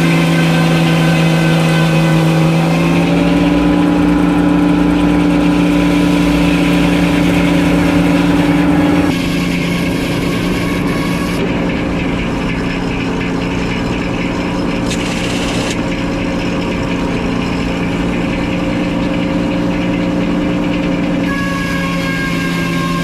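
Engine of a circular sawmill running steadily. Its pitch shifts slightly about three seconds in, and about nine seconds in it drops a little quieter and changes tone.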